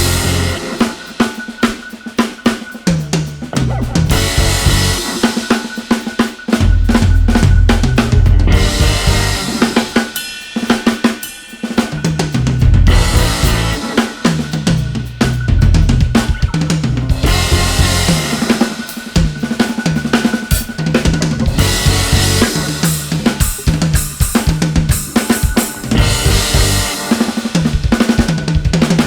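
Drum kit with Soultone cymbals (hi-hats, crashes, splash, ride) played fast and busy, with bass drum, snare and cymbal hits over a pitched low line. About ten seconds in the playing drops back to a few sparse hits for a moment before the full groove returns.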